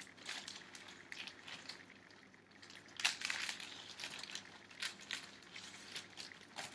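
Vinyl record jackets and sleeves being handled: light rustling and scraping of card and paper as records are moved and shuffled through a stack by hand, with a louder rustle about three seconds in.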